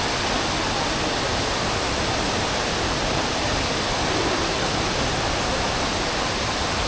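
Indoor waterfall installation: water falling from the ceiling like rain and splashing down, a steady, even rush.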